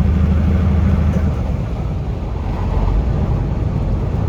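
Semi truck engine and road noise heard inside the cab while driving: a steady low engine drone that changes about a second in to a rougher, less even rumble, as when the throttle is eased or a gear is changed.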